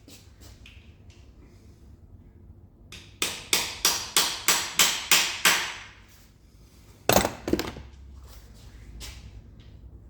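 Hammer blows driving an Irwin bolt-extractor socket onto a stuck bolt head so its teeth bite in: about nine quick, sharp metal strikes, roughly four a second, then two heavier knocks.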